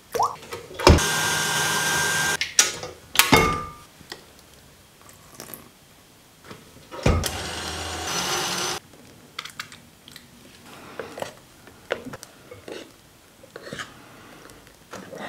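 Two short runs of a stand mixer's wire whisk beating egg whites into meringue in a glass bowl, each under two seconds, with knocks against the bowl between them. After that come soft scrapes and light taps of a spoon stirring in the glass bowl.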